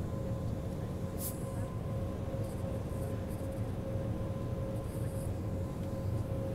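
Steady cabin noise of a jet airliner holding on the ground with its engines idling: a low rumble with two faint steady whining tones. A few brief faint hissing ticks come and go over it.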